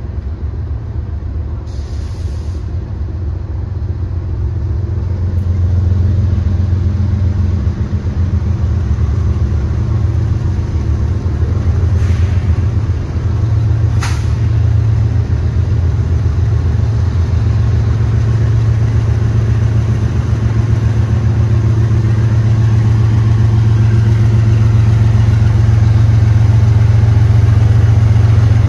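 Diesel locomotive engine running with a steady low rumble, growing gradually louder; two short sharp clicks about 12 and 14 seconds in.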